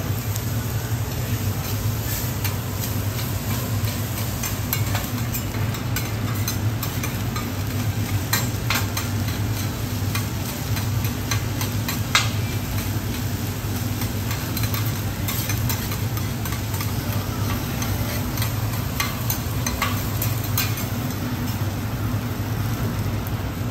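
Garlic fried rice sizzling on a steel teppanyaki griddle while two metal spatulas scrape, chop and tap against the plate in irregular clicks, over a steady low hum.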